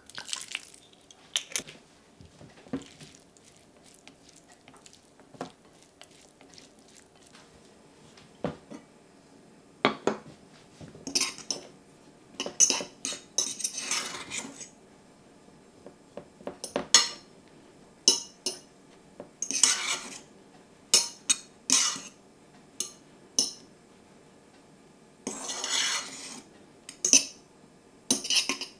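A metal fork scraping and clinking against a stainless steel saucepan as it fluffs cooked couscous, in irregular sharp clinks and short scraping runs. The strokes begin about a third of the way in, after a quieter stretch of faint clicks.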